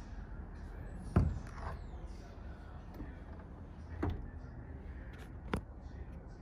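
2003 Corvette's rear lid being opened: a loud clunk as the latch lets go about a second in, then a softer knock and a sharp click a few seconds later, over a steady low hum.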